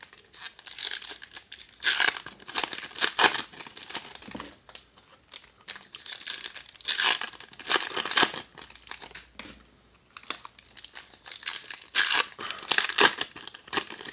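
Foil wrappers of 2019 Topps baseball card packs being torn open and crinkled by hand, in several rounds of ripping and crackling with short lulls between.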